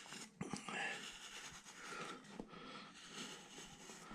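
Faint scraping of a number 9 carving gouge, about 10 mm, taking small cuts in wood, with a few short clicks about half a second in.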